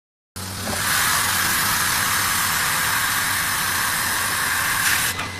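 Steady, loud hiss of a fiber laser cutting machine at work, typical of assist gas jetting from the cutting head, over a low hum. It starts suddenly and drops away about five seconds in.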